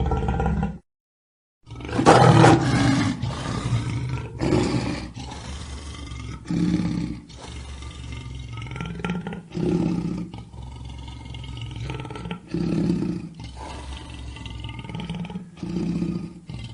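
Lion roaring. A roar cuts off within the first second, and after a brief silence a loud, full roar comes at about two seconds. It is followed by a string of shorter calls every couple of seconds that mostly grow fainter.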